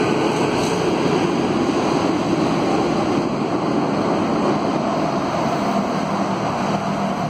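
Electric metro train moving along the platform: a steady rushing noise of the train in motion that eases slightly and then cuts off suddenly at the end.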